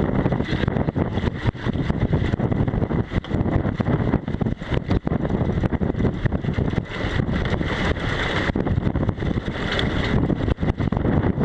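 Strong wind rumbling on the microphone of a small sailboat running downwind, surging and dipping in gusts, with water rushing and splashing along the hull.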